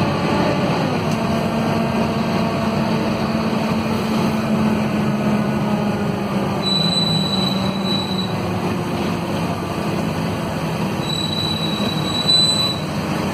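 Scania DC9 five-cylinder diesel of a Scania K230UB city bus with a ZF Ecomat automatic, heard from inside the passenger cabin. It drones steadily under way, its pitch sinking a little past the middle. A thin high squeal sounds twice, about seven and eleven seconds in.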